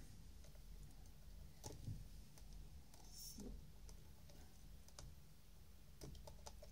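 Faint, scattered small clicks and ticks of a screwdriver and small screws being handled on the plastic housing of a Bruder CAT model mini excavator while it is screwed shut, a few more of them near the end.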